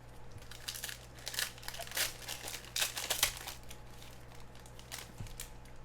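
Football trading cards and their plastic being handled: a run of irregular crinkling and rustling, thickest in the first three and a half seconds and thinning out after that.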